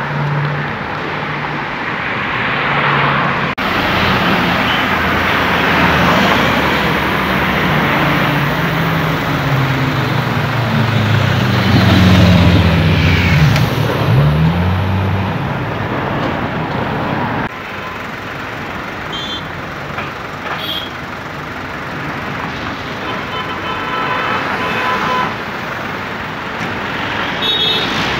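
A sport motorcycle's engine revving hard, its pitch climbing and dropping through gear changes as it accelerates away, loudest about two-thirds of the way through. Then steady city traffic with car horns tooting.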